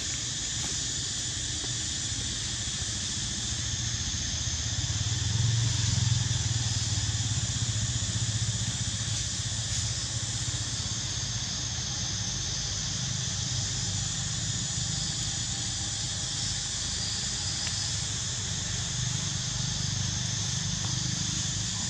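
Steady outdoor ambience: a continuous high hiss over a low rumble that swells for a few seconds about five seconds in, with no distinct calls or knocks.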